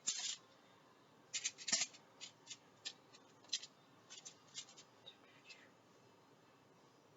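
Aluminium foil crinkling in short, separate rustles as asparagus spears are laid out on a foil-lined baking pan, about a dozen over five seconds. The loudest comes about one and a half seconds in.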